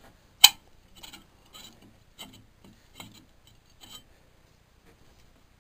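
A single sharp click about half a second in, followed by faint, irregular taps and rubbing, about two a second, that die away after about four seconds.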